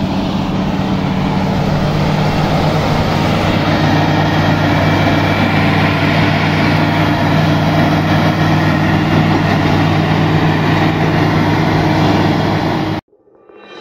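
Diesel engine of a tracked dozer running steadily as it clears snow. The sound cuts off suddenly near the end.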